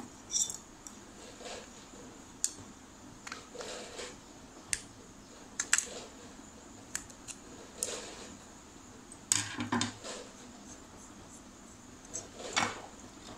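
Scattered small metallic clicks and taps as a screwdriver and fingers work the brass jets out of an aluminium four-stroke carburetor body, with a louder clatter of handling about nine and a half seconds in.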